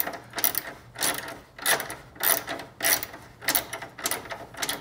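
Hand ratchet wrench clicking in short bursts, about two a second, as it is swung back and forth to loosen a bolt.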